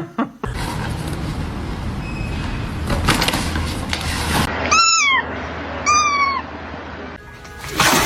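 A cat meowing twice, two short rising-and-falling calls about a second apart, after a stretch of steady background noise.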